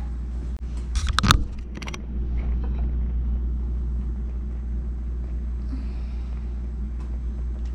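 Kitchen background noise: a steady low rumble, with a short clatter of sharp clicks about a second in as dishes are handled.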